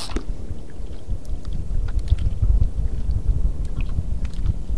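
Low, uneven rumble of wind buffeting the microphone on an open boat at sea, with scattered faint clicks and taps.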